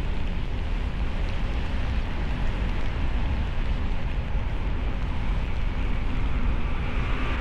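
A car driving on a snowy road: a steady rumble of tyres, engine and wind, heaviest in the low end, with no distinct events.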